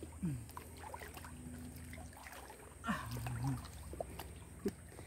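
Quiet sloshing and trickling of shallow river water as a man wades and digs by hand into a muddy bank, with a few soft clicks and two brief murmured vocal sounds, one near the start and one about three seconds in.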